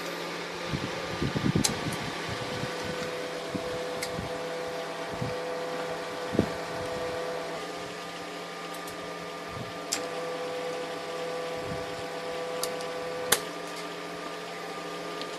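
Homemade spot welder built from a microwave-oven transformer humming steadily, with a few sharp clicks. A higher hum tone comes on twice, for about five seconds early and about three seconds later, each stretch bounded by clicks. There are a few low handling knocks.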